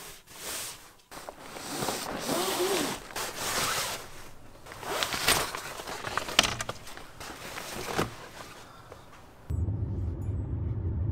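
Rustling, scraping and zipping of bags and camping gear being packed into a car, with a few sharp clicks and knocks. Near the end it cuts to the steady low rumble of a car on the move, heard from inside the cabin.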